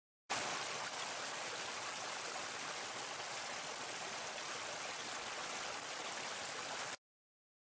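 Small stream cascading over rocks, a steady rush of splashing water that cuts off suddenly near the end.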